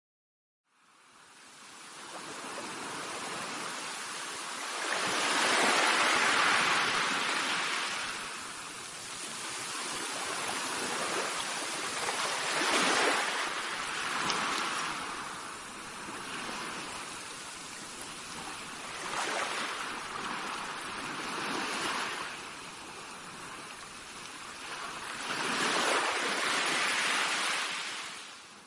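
Sea surf washing on a shore: a steady rush of water that swells four times, about every six to seven seconds, as waves break. It fades in about a second in and fades out at the end.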